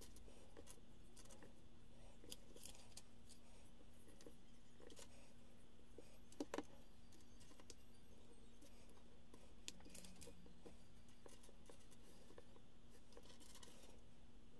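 Faint scattered clicks and rustles of small plastic Lego pieces being picked through and handled, with a louder pair of clicks about six and a half seconds in, over a steady low hum.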